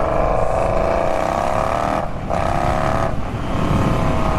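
Indian Scout Bobber's V-twin engine running loud through short GP Shorty exhaust mufflers while riding under throttle. The note breaks off briefly about two seconds in and again about three seconds in.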